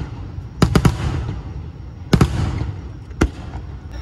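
Aerial fireworks shells bursting. A quick run of three bangs comes about half a second in, two more around two seconds in, and a single bang about three seconds in, each trailed by a rumbling echo.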